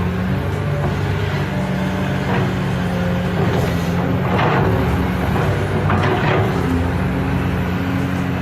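A motor running steadily with a low hum whose pitch shifts slightly now and then, with a few short scrapes or knocks over it.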